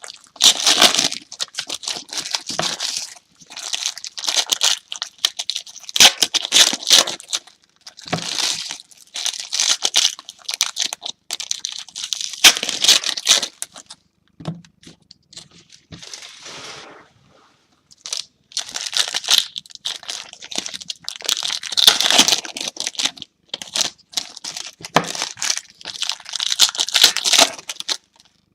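Plastic card-pack wrapping crinkling and tearing in repeated spurts a second or two long, with a short lull about two-thirds of the way through.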